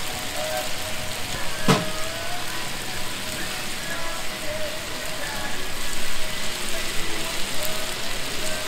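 Chicken pieces in a red marinade sizzling on a hot flat griddle, a steady hiss. One sharp click comes a little under two seconds in.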